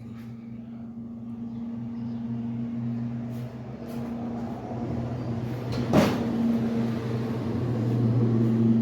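A steady low mechanical hum that slowly grows louder, with a single sharp knock about six seconds in.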